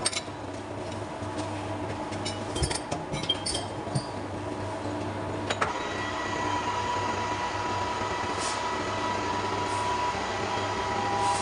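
Heavy machine-shop machinery running with a steady low hum and a few metallic clinks, then a steady high whine that sets in about six seconds in.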